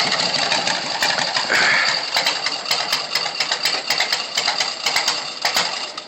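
Small motor scooter engine running with a fast mechanical clatter, its level rising and falling; the sound falls away near the end.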